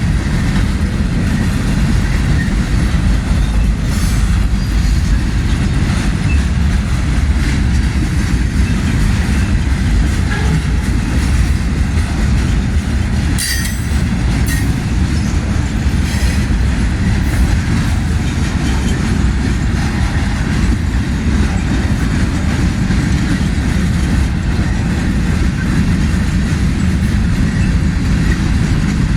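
Freight cars of a slow-moving manifest train rolling past, a steady low rumble of wheels on rail, with a few sharp clicks and knocks, several of them about halfway through.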